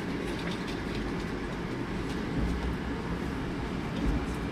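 Moskva-series (81-765) metro train running, heard from inside the passenger car: a steady low rumble with a few light clicks.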